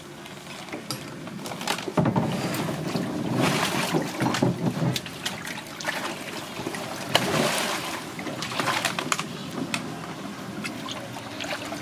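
Water sloshing and splashing in a fish holding tank as a large grouper is handled by hand, in irregular bursts that are loudest about two seconds in and again about seven seconds in.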